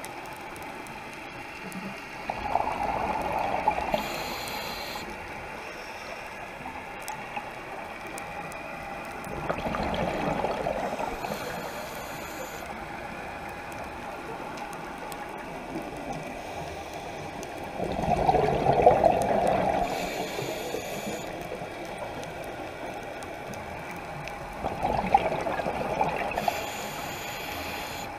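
Scuba diver breathing through a regulator, heard underwater: four rushes of exhaled bubbles about every seven to eight seconds, each followed by a short hiss of the regulator.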